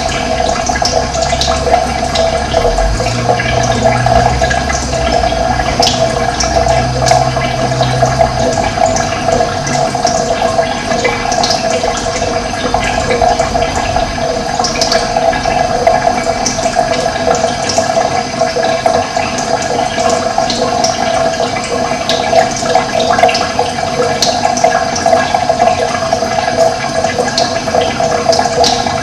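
Steady rush of running water with birds chirping over it in short, scattered calls. A low rumble sits underneath for the first nine seconds or so.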